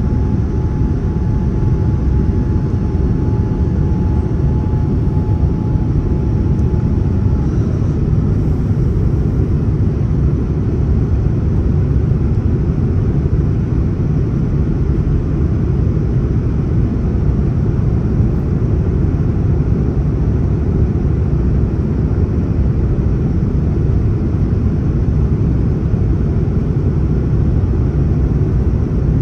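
Steady cabin noise inside a Boeing 787-9 airliner in flight, a constant low rumble of engines and rushing air. A faint high steady tone in the background stops about seven seconds in.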